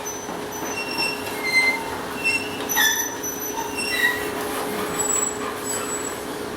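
Old sawmill machinery running: a steady mechanical hum with many short, high-pitched squeals of metal parts scattered through it.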